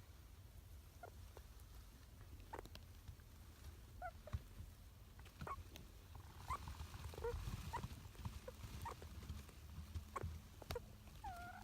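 Richardson's ground squirrel making faint sleep noises: scattered soft clicks and a few short squeaks, one curving squeak near the end.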